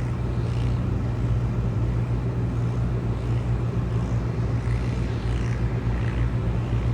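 John Deere tractor's six-cylinder diesel engine running steadily under load, pulling a Freeman small square baler. It is a constant low drone with faint, irregular higher sounds over it.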